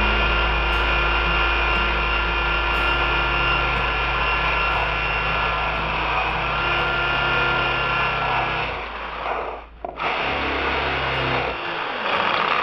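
Electric drill running steadily with a concrete bit grinding into a wet glass mirror, a steady whine over a gritty rasp. It cuts out briefly about nine seconds in, then starts again.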